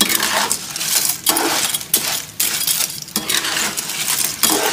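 Clam shells clattering and clinking against a stainless steel wok and a metal spatula as the clams are stir-fried, in repeated scoops with short pauses between them.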